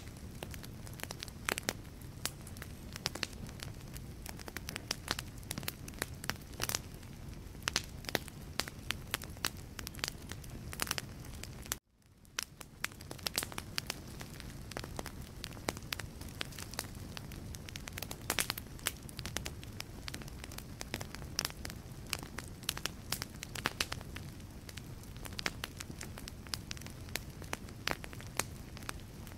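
Wood logs burning in a fireplace: dense, irregular crackles and pops over a steady low rumble of flame. About twelve seconds in the sound cuts out briefly, then fades back in.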